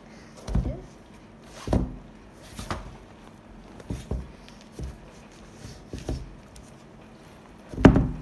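Rubber soles of kids' Air Jordan 3 basketball shoes knocking on a cloth-covered table as they are picked up and set down: a string of irregular dull thumps, the loudest near the end.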